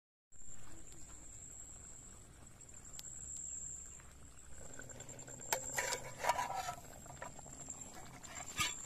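Outdoor ambience cutting in abruptly: a steady high-pitched drone, with a cluster of sharp clicks and knocks around six seconds in and one more near the end.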